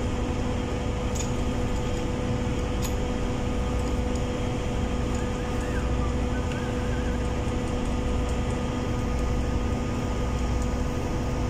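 Steady drone of ship's machinery: a low rumble with an even hum through it. A couple of faint metallic clicks come in the first few seconds as the pump's metal clamps are fitted by hand.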